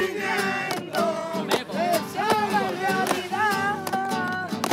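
Spanish-style acoustic guitar strummed while a woman sings a wavering, held melody, with sharp strums throughout.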